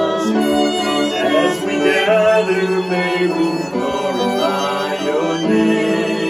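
Live music from a small family ensemble: violin and cello playing a hymn tune while a man and a girl sing.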